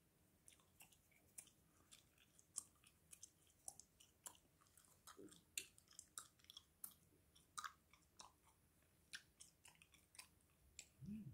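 Chewing gum close to the microphone: faint, irregular wet mouth clicks and smacks, a few each second.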